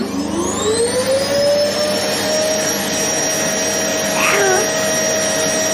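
Electric vacuum cleaner motor spinning up, its whine rising in pitch over about the first two seconds and then running steadily. A short falling squeal is heard about four seconds in.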